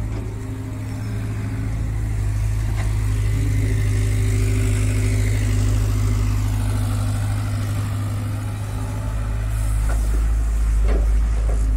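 Diesel engines running steadily: a Swaraj 744FE tractor and a Hyundai excavator loading soil into its trolley. A higher hiss swells and fades midway, and a few light knocks come near the end.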